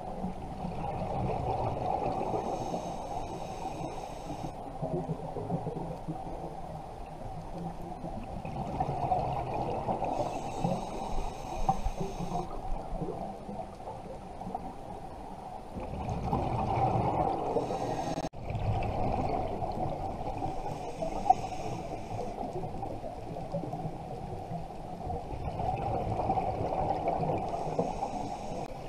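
Scuba diver breathing through a regulator underwater: the bubbling rush of exhaled bubbles, broken every six to eight seconds by the higher hiss of an inhalation.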